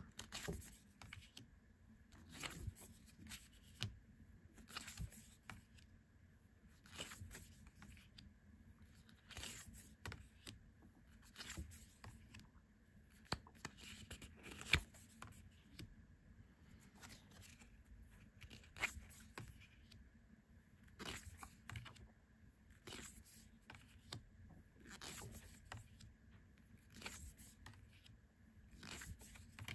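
Tarot cards being slid off the front of a hand-held deck one at a time: a faint brushing scrape of card on card, often in quick pairs, about every two seconds.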